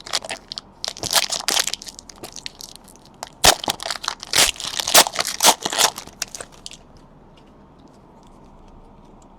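A trading card pack's wrapper being torn open and crumpled: a dense run of sharp crackling for about six seconds, then quiet.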